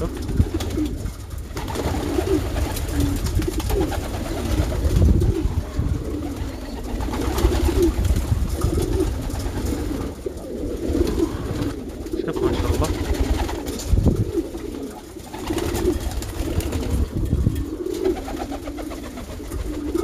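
Domestic pigeons cooing again and again, several birds overlapping, over a low rumble.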